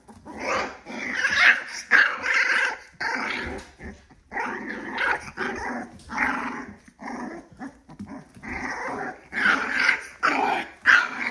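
Young puppies, about three weeks old, growling in rough play, in a string of short rough bursts with brief pauses.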